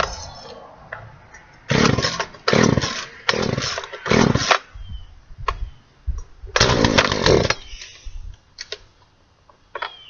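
Chainsaw revved hard in four quick bursts, then one longer burst, dropping back to a low idle in between as it bites into a plastic Plano tackle box.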